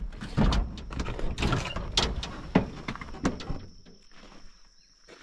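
Pickup truck door being unlatched and opened as someone climbs out of the cab: a run of clicks, clunks and knocks over the first three and a half seconds, then it settles down.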